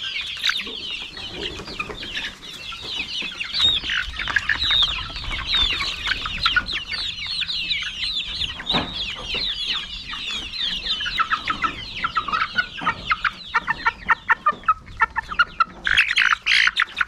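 A flock of young laying chickens, about two months old, cheeping and peeping continuously with many overlapping short, high calls. In the last few seconds the calls get louder and come in a quicker, more regular run.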